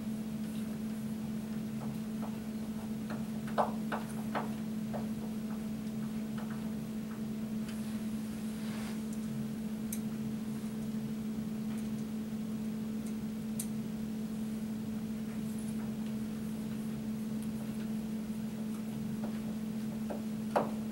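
Scattered small clicks and knocks of metal angle brackets and small screws being handled and driven by hand with a Phillips screwdriver into a furniture shelf, over a steady hum. The sharpest knocks come about three and a half seconds in and again near the end.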